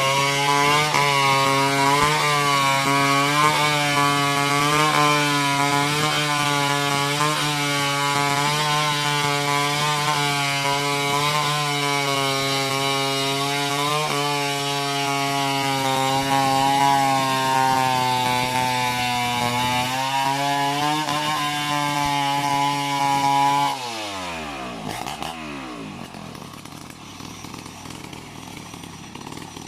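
Two-stroke chainsaw running at high revs, cutting through a coconut palm trunk, its pitch wavering about once a second with the cutting strokes. Near the end the throttle is released and the revs fall sharply to a much quieter idle.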